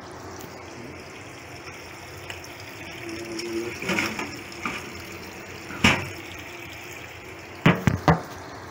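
Kitchen tap running into a stainless steel sink while spider conch meat is rinsed and rubbed clean by hand, with some handling clatter. A sharp knock comes about six seconds in, and three quick, louder knocks follow near the end.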